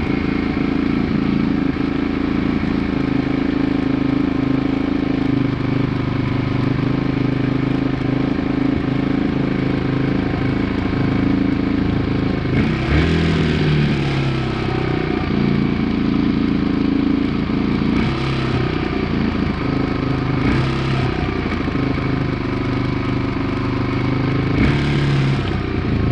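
A 2002 Yamaha 225 motorcycle engine running at idle, revved briefly about four times in the second half, each rev a short rise in pitch before dropping back to idle.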